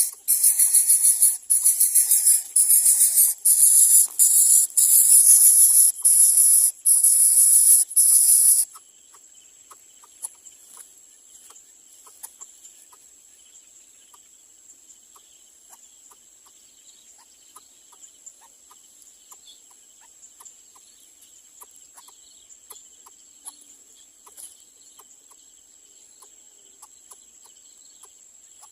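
Greater coucal nestlings hissing loudly in rapid, rasping bursts with short breaks, cutting off abruptly about nine seconds in. After that, a steady high insect buzz and faint scattered ticks remain.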